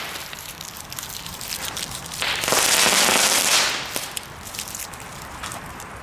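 Category 1 consumer fireworks crackling: a dense fizz of rapid small snaps that swells loudly for over a second about two seconds in, then thins to scattered single pops.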